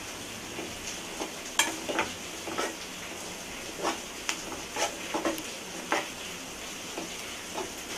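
Chopped onions, green chillies and ginger-garlic paste sizzling in hot oil in a nonstick kadai, with a spoon stirring and scraping against the pan in irregular strokes.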